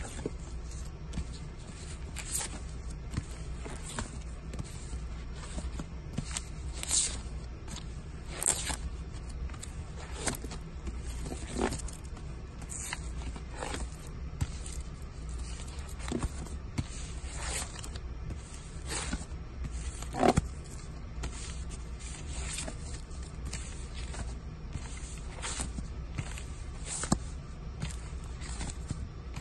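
Vinyl LP record jackets in plastic outer sleeves being flipped through by hand, each one sliding and tipping forward with a short scrape and plastic rustle, about one every second. A steady low hum runs underneath.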